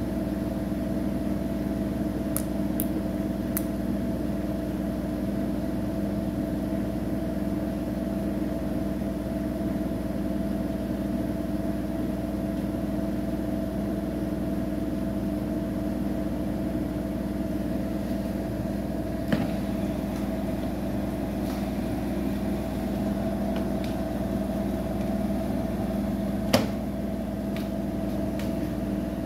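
Siemens iQ700 front-loading washing machine in its final spin, the drum turning at a steady speed with an even, unchanging hum. A few short clicks come through, the loudest near the end.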